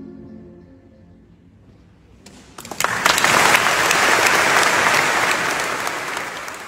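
The last held chord of a male vocal ensemble fades away. After a short pause an audience breaks into applause about two and a half seconds in; the applause is the loudest sound and starts to die down near the end.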